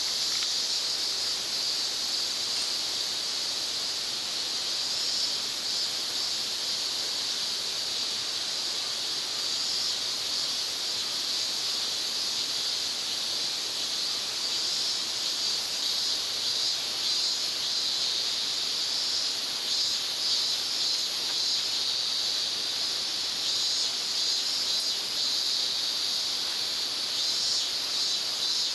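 Steady, high-pitched chorus of insects trilling continuously, without pause.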